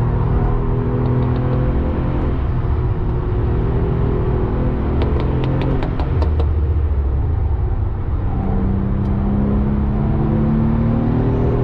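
Porsche 996 Carrera 2's 3.6-litre flat-six heard from inside the cabin at speed. The engine note holds, drops about six seconds in, then the revs climb steadily through the last few seconds.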